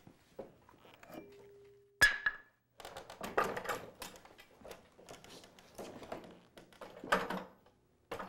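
A sharp wooden knock about two seconds in, then the leaf vacuum's power unit being dragged off a wooden shipping pallet: irregular scraping and bumping of its frame and small wheels over the pallet boards, with another hard knock about seven seconds in.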